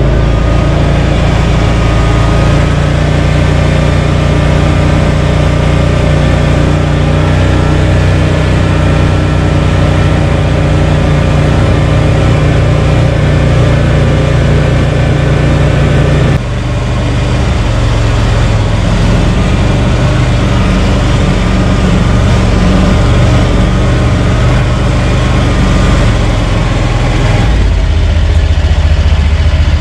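The 30 hp Loncin engine of a Krosh all-terrain vehicle running steadily and loudly, with its note changing abruptly about halfway through and again near the end.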